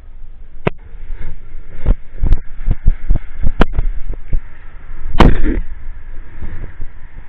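Airsoft replicas firing during a game: a string of sharp, irregular pops and cracks, with one longer, louder blast about five seconds in.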